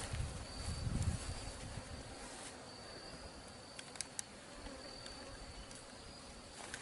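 Honeybees buzzing faintly around an opened hive, with a thin high tone coming and going. Some handling noise in the first second and two small clicks about four seconds in.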